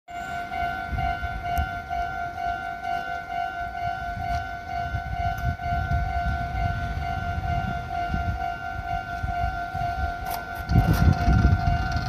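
Japanese railway level-crossing warning bell ringing steadily in even, rapid repeats, with a low rumble growing louder about a second before the end.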